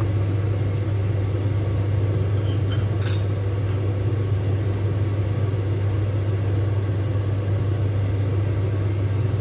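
A steady, loud low hum from the kitchen cooking equipment, with a few light clicks of a silicone spatula against the wok about three seconds in as the squid stir-fry is stirred.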